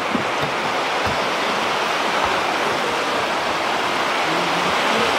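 Rushing water of a river pouring over rocks below a waterfall, a steady even rush.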